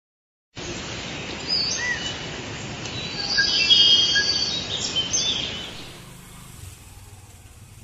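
Forest ambience of birds chirping and whistling over a steady hiss. About six seconds in it fades to a quieter low rumble.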